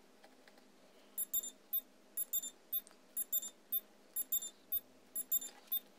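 High electronic beeping, starting about a second in: a group of about four short beeps that repeats once a second.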